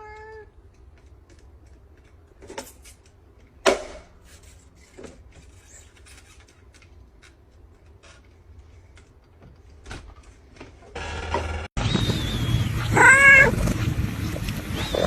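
A cat meows briefly, then scattered clicks and knocks, the loudest about four seconds in, as the cat works at a door to open it. Near the end, over louder background noise, comes another drawn-out meow-like call.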